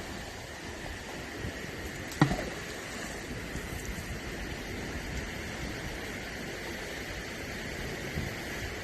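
A magnet-fishing magnet landing in the water with one sharp plop about two seconds in, over a steady outdoor hiss.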